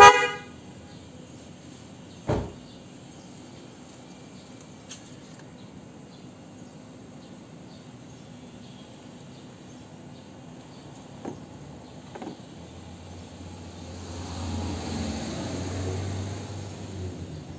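A short toot from a pair of Denso snail horns, high and low tones sounding together, being tested after fitting. About two seconds later comes a single thump, and near the end a low hum swells and fades.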